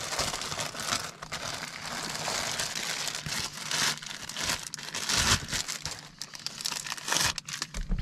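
Clear plastic bag crinkling and rustling in the hands as it is pulled open to unwrap a new part.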